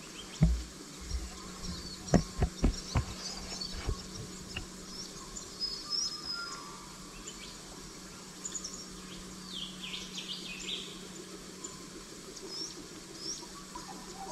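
Several footsteps on dry stony ground and leaf litter in the first few seconds, over a steady insect buzz and scattered short high chirps.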